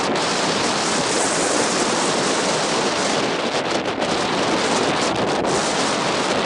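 Wind blowing on the camera microphone: a steady, loud rushing hiss.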